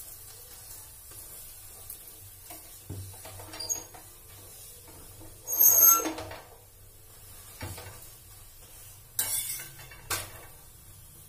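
Steel spoon knocking and clinking against an iron tawa and kitchen vessels while spreading ghee on a paratha. A short, loud ringing clink comes about six seconds in, and a brief scrape about nine seconds in.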